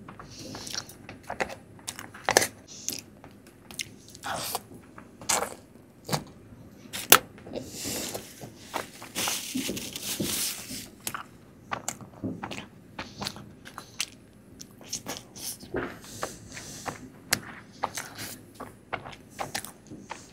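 Close-up eating of soft Indian milk sweets: a run of chewing, biting and mouth clicks, with a longer noisy stretch near the middle.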